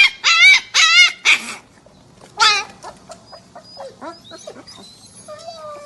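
An animal giving high, wavering cries: four in quick succession in the first second and a half, one more about two and a half seconds in, then faint short squeaks and chirps.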